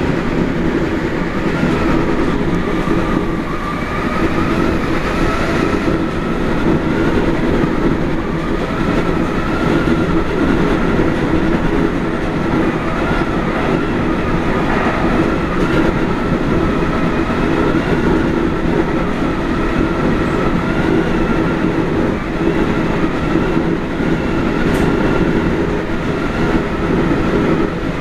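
JR Hokkaido 711 series AC electric multiple unit running at speed, heard from inside behind the cab: a steady rumble of wheels on rail with a faint whine that wavers slightly in pitch.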